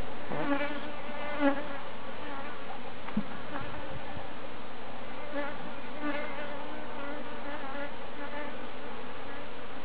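Honeybees from a small swarm buzzing in flight around the hive box: a steady hum, with the pitch of single bees wavering up and down as they pass close. A light knock about three seconds in.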